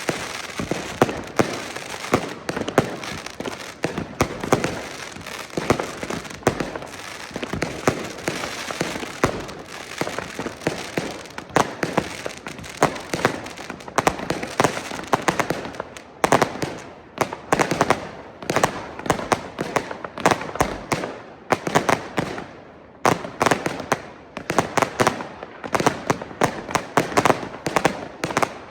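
Consumer fireworks and firecrackers going off all around: a dense, continuous barrage of sharp bangs and crackling with no pause, thinning into separate clusters of bangs in the second half.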